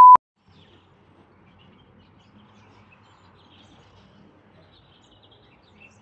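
A loud, steady bleep tone that cuts off abruptly just after the start. Then faint outdoor ambience: a low hum with scattered faint bird chirps.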